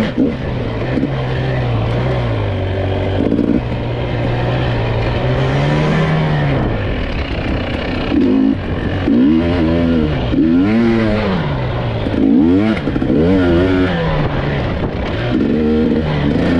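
GasGas EC300 two-stroke enduro motorcycle engine, heard close up from the rider's seat while being ridden, its revs rising and falling over and over as the throttle is opened and closed. The revving grows busier, with quicker swings up and down, from about halfway through.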